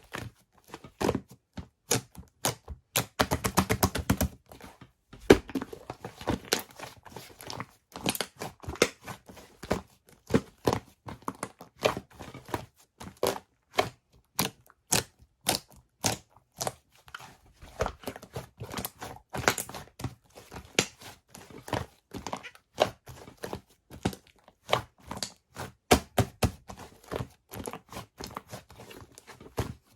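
Fluffy clay slime being squeezed, poked and folded by hand, giving a steady irregular run of sticky clicks and pops, with a denser crackle about three seconds in.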